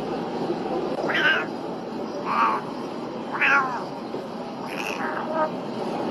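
A cat meowing: four short meows about a second apart, with a fainter fifth one, over steady background noise.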